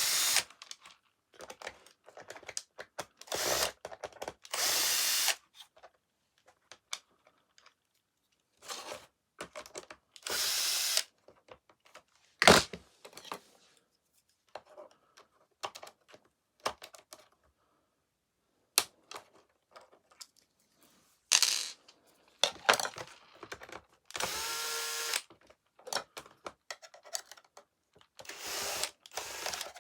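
Power screwdriver running in short bursts, spinning screws out of a plastic vacuum floor head, with small clicks and rattles of plastic and screws between the bursts. A single sharp knock stands out partway through.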